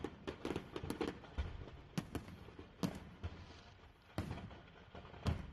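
Stored fireworks going off in a burning house: a quick string of pops and crackles that thins after about a second into scattered single bangs, the loudest near the end.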